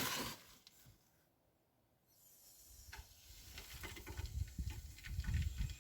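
Engine block heater on a loader coming on after being plugged in, with a faint hissing and sizzling that starts about two seconds in and grows a little stronger.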